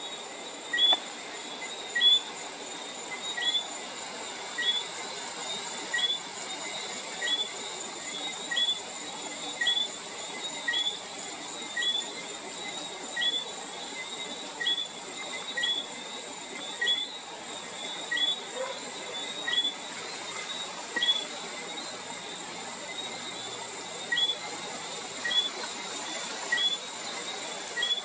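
Johnstone's whistling frog calling: a short two-note whistle, ending in a rising chirp, repeated about every 1.2 seconds. A steady high-pitched insect trill runs underneath.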